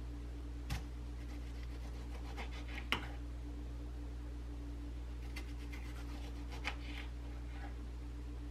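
Kitchen knife slicing a tomato on a bamboo cutting board, the blade knocking on the wood several times, loudest about three seconds in, over a steady low hum.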